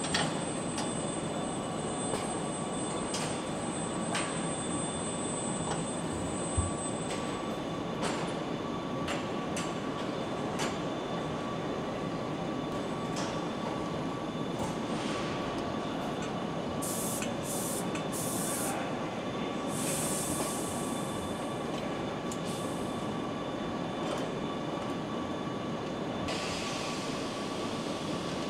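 Car-factory assembly-line noise: a steady machinery hum with a constant high tone, scattered light clicks and knocks, and short hissing bursts about two-thirds of the way through and near the end.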